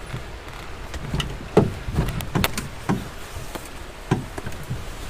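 Irregular knocks and thumps, about seven in three seconds, as a Wenonah solo canoe carried overhead bumps against trees and branches on a portage trail.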